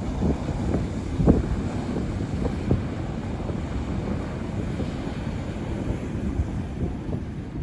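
Wind buffeting the microphone: a steady low rumble with a few stronger gusts in the first three seconds.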